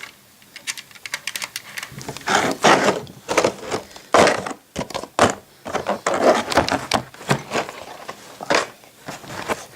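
Irregular clicks, taps and rubbing as a small plastic HO scale model hopper car is handled and set onto model railway track, with a few louder knocks scattered through.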